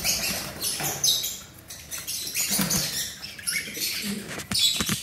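Guinea pigs and a lorikeet biting and crunching into a fresh apple: a run of short, crisp chewing bursts, with a few sharp clicks near the end.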